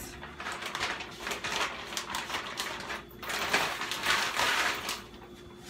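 Plastic bag crinkling and rustling as it is handled and searched through, with small clicks and taps of items shifting. It gets louder and more crackly in the second half.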